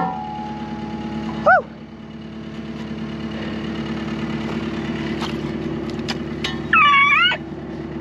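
Pickup truck engine idling steadily; the owner guesses its exhaust pipe is not fully on. Over it come two short high-pitched calls that slide in pitch, one about a second and a half in and a louder, longer one near the end.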